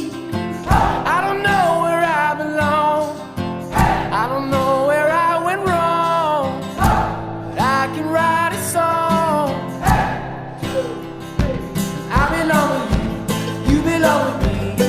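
Folk-pop song: singing over strummed acoustic guitar with a steady beat.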